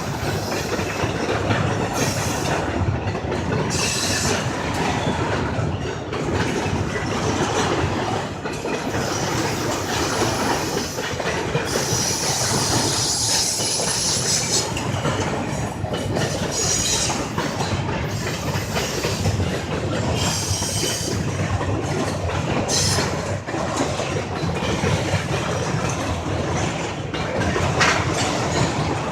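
Freight train cars rolling past with a steady rumble and clicking over the rail joints, broken by repeated bursts of high-pitched wheel squeal, the longest a couple of seconds about halfway through.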